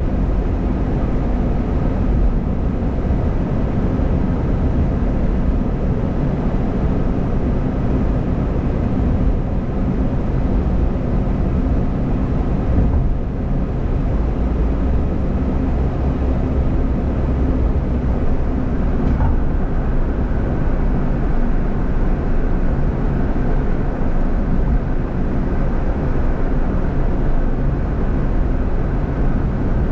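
Car driving on a paved road, heard from inside the cabin: a steady rumble of tyres and engine.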